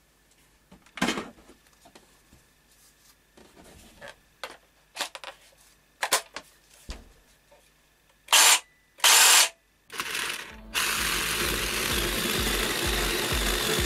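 Clicks and handling knocks as a 20 V battery pack is lifted from its charger and snapped into a P.I.T. PST20H-70A/1 cordless jigsaw, then a few short loud bursts, and from about eleven seconds in the jigsaw running steadily as its blade cuts through a thick wooden beam.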